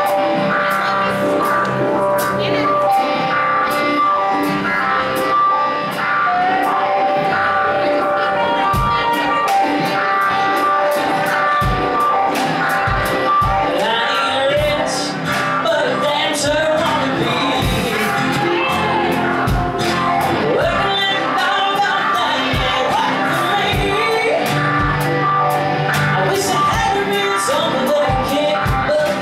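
Live country band playing a song with electric and acoustic guitars and a steady drum beat; a woman's lead vocal comes in a few seconds in.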